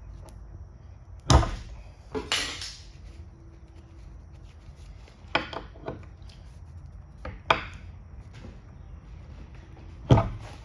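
A handful of separate knocks and clunks of wood and tools being handled and set down on a workbench, irregularly spaced, the loudest about a second in and near the end.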